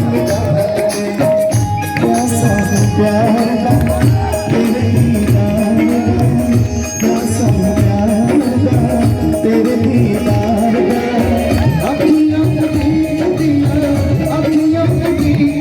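Live Indian devotional stage music: a steady, regular drum beat under a wavering melody line.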